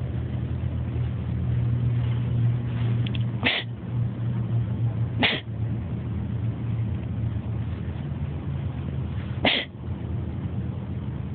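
A pet sneezing three times: short, sharp sneezes, the second about two seconds after the first and the third about four seconds later, over a steady low hum.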